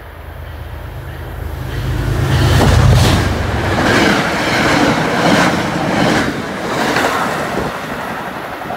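MBTA commuter rail train passing close at speed: the diesel locomotive's low rumble swells to its loudest about three seconds in, then the coaches rush by with a steady clickety-clack of wheels over rail joints, easing off as the cab car draws away.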